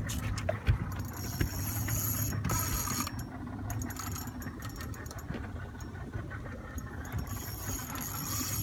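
Fishing reel ratcheting with a thin high whine in two stretches, about a second in and again near the end, as a hooked shark pulls against the line. A boat engine hums steadily underneath.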